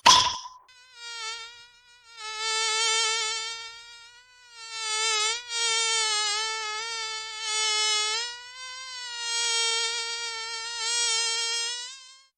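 Buzzing-insect sound effect, like a mosquito or fly circling close: a steady, high buzz that swells louder and fades away several times. A brief sharp hit sounds right at the start.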